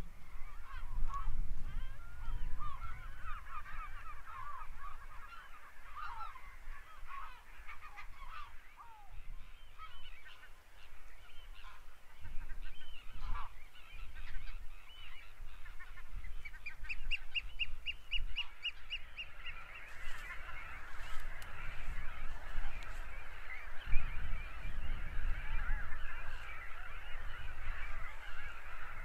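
A flock of geese honking and chattering. A rapid, even trill from another bird runs for a few seconds a little over halfway through. Wind rumbles on the microphone underneath.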